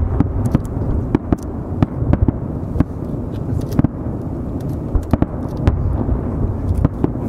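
Aerial firework shells bursting, an irregular string of sharp bangs about two a second over a continuous low rumble of reports echoing back.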